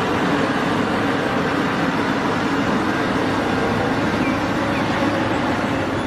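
Large Caterpillar 6015B hydraulic mining excavator's diesel engine running steadily as it digs and loads, a constant rumble with a low hum.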